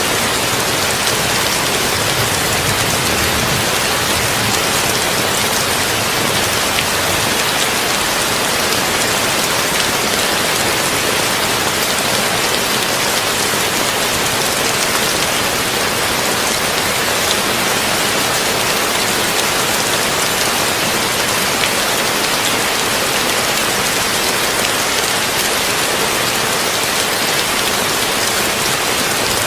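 Heavy rain falling steadily on a tin roof, an even, unbroken patter.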